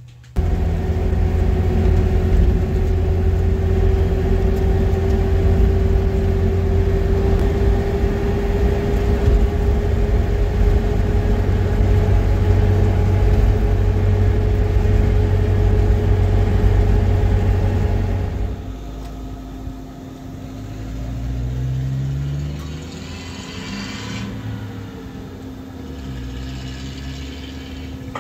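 Car driving along a paved road, heard from inside: a loud steady rumble of engine and tyres with a steady whine that rises slightly. About two-thirds through it cuts off abruptly and a fainter engine sound follows, rising and falling in pitch.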